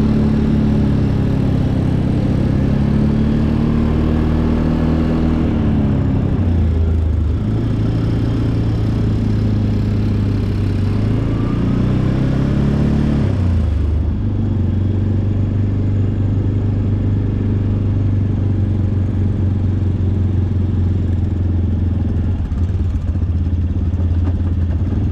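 ATV engine running under way, its pitch falling off about five seconds in, climbing and dropping again near the middle, then holding steady at a lower pitch.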